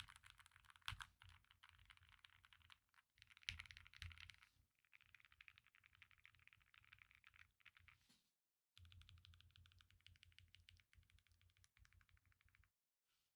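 Faint typing on the Akko SPR67, a spring-mounted mechanical keyboard fitted with PBT keycaps: fast runs of key clacks with short pauses, about three seconds in, near five seconds and about eight and a half seconds in.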